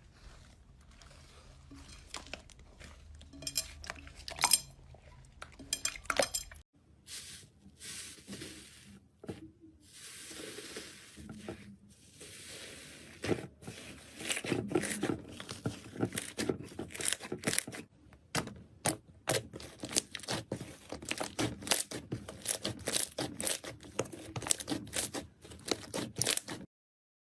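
Slime being worked and squished, making many quick clicks, pops and crackles that grow denser about halfway through.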